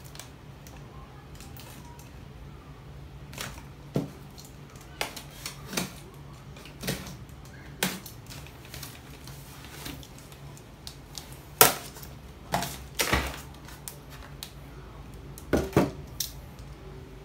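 Expanded-polystyrene foam packaging being handled as the foam lid is worked off the inner tray: scattered sharp knocks and clicks of the foam pieces, the sharpest about two-thirds of the way in.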